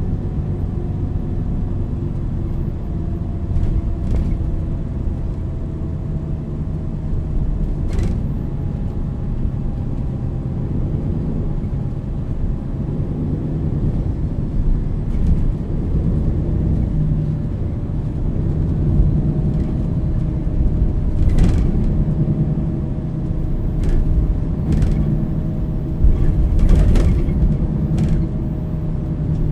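MAN NL 323 city bus driving, heard from inside: a steady low diesel engine and road rumble with a faint whine from the ZF EcoLife automatic drivetrain that shifts in pitch a few times. A few short sharp rattles or clicks come through, most of them near the end.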